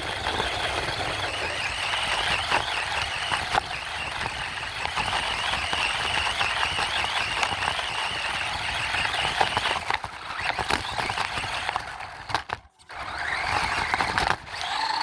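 Radio-controlled truck driving, its motor and gears giving a high whine that wavers with the throttle, over a steady rattling and crackling with many small clicks. The sound cuts out briefly near the end, then resumes.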